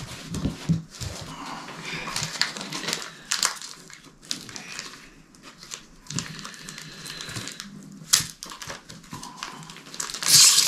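Foil Pokémon booster-pack wrappers and trading cards being handled: irregular rustling and crinkling with short card clicks, and the loudest crinkle near the end.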